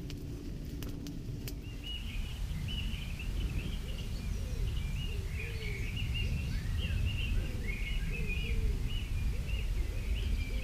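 A few sharp crackles from a wood campfire, then from about two seconds in a dawn chorus of many songbirds chirping and trilling, with repeated lower calls among them, over a steady low rumble.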